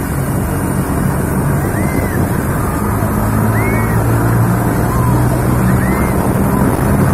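Helicopter running: steady loud rotor and engine noise with a thin high turbine whine above it.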